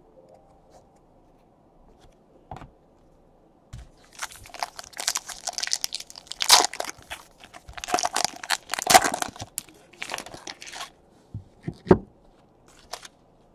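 Foil trading-card pack being torn open and crinkled by hand. After a quiet start, dense crackling and tearing runs for about seven seconds, followed by a couple of light knocks near the end.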